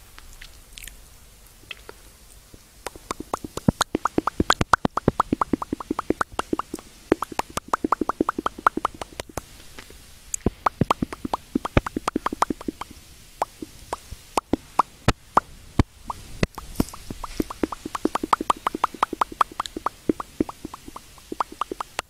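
Wet mouth sounds close to an earphone's inline microphone: quick runs of clicks and pops, many a second, in bursts of a few seconds with short pauses between them, the mouth-sound imitation of eating candy.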